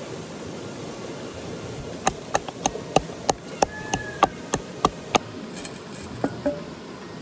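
A run of about a dozen sharp, slightly ringing knocks at roughly three a second, like something being struck or chopped with a hard tool, then two more a moment later. Under them is the steady rush of flowing river water.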